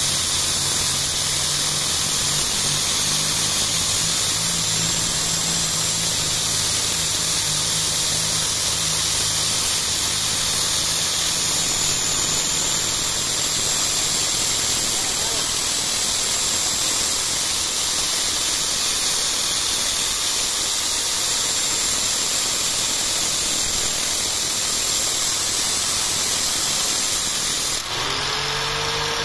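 Nagasaki angle grinder running steadily while a thin metal rod, spun in an electric drill, is held against its disc: a continuous grinding hiss with the motors humming under it. Near the end the rod comes off the disc, the hiss changes and a tone rises in pitch as the tools run free.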